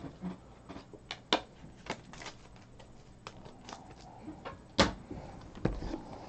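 Quiet handling of trading cards and card boxes on a table: scattered light clicks and taps, one sharp knock about three-quarters of the way through, and a few more knocks near the end as a boxed card product is taken off the top of a stack.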